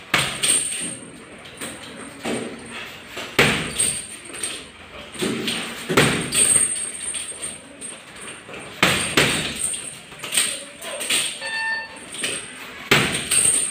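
Boxing-gloved punches hitting a heavy punching bag: irregular thuds and slaps, thrown singly and in quick combinations.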